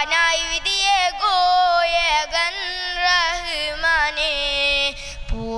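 A boy singing a Malayalam devotional song in praise of the Prophet: one long wordless run, with the melody bending and turning quickly up and down, and the voice fading a little near the end.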